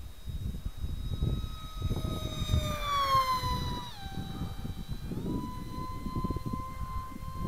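Brushless outrunner motor (Turnigy 2836-3200) spinning a 5x5 APC propeller on a FunJet flying wing, heard from the onboard camera: a high whine that slides down in pitch about three seconds in, dips about four seconds in, then climbs back a second later and holds steady. Wind rumbles on the microphone throughout.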